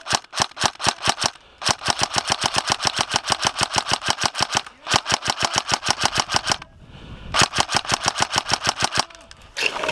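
Airsoft electric gun firing on full auto in several bursts of rapid, evenly spaced shots. The longest burst lasts about three seconds, with short pauses between the bursts.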